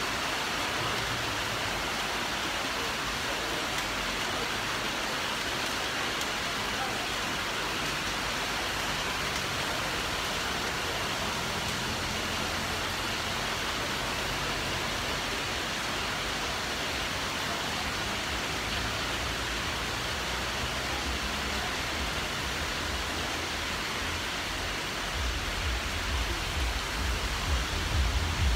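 Heavy tropical rain pouring onto a flooded street, a steady, even hiss. Near the end an uneven low rumble comes in underneath.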